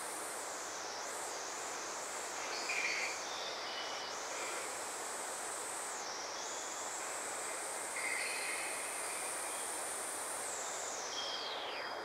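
Analog synthesizer playing a hissing noise texture with a high whistling tone that wavers and dips several times, then dives steeply in pitch near the end, with a few short high bleeps scattered through.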